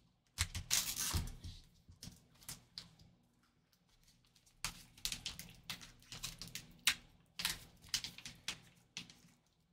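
Gloved hands opening a black Gold Rush trading-card pack: the pouch crinkles and rustles in irregular bursts, with a short pause about three seconds in.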